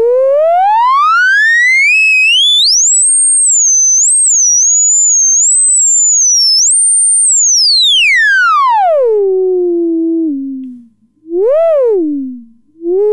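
MachineRoom 204D VCF, a Moog ladder filter clone, self-oscillating: a pure, whistling sine-like tone whose pitch follows the cutoff knob. It glides smoothly up from a mid tone to a high whistle, wavers there for a few seconds, then sweeps down to a low tone that fades out, since the filter resonates only weakly at low frequencies. Two short up-and-down swoops follow near the end.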